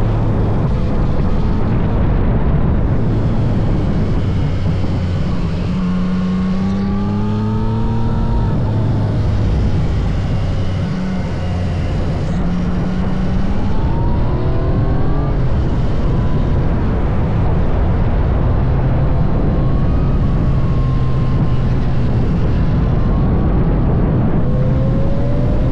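Yamaha MT-09 SP's inline-three engine being ridden hard, its revs climbing and dropping several times.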